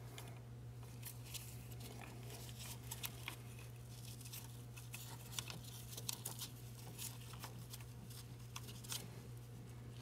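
Faint scattered clicks and rustling of gloved hands seating a new diesel fuel injector in the cylinder head, over a steady low hum.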